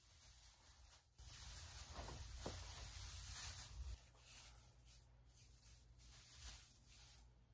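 Faint rustling and scratching of artificial Christmas tree branches and string lights being handled, strongest from about a second in to about four seconds, then fainter.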